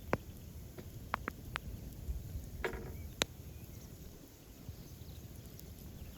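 Sparse light clicks and taps from handling meat and utensils at a cooking table, with a brief squeak about two and a half seconds in.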